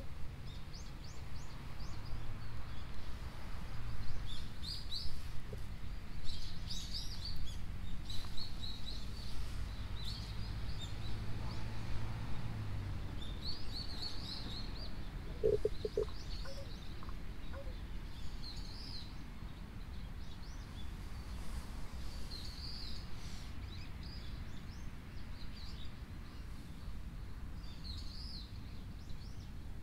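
Small birds chirping on and off, short high calls scattered throughout, over a steady low background rumble.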